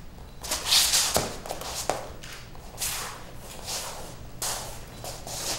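Several quick swishes through the air and feet shuffling and stepping on a training mat as a martial artist in a loose robe moves, with a couple of light taps.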